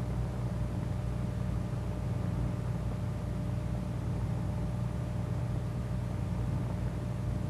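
Steady low hum and hiss of an old optical film soundtrack, with no distinct events.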